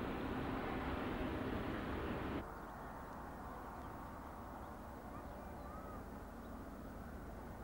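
Industrial gas flare burning with a steady rushing noise that cuts off sharply about two and a half seconds in, leaving a quieter steady outdoor background with a few faint bird calls.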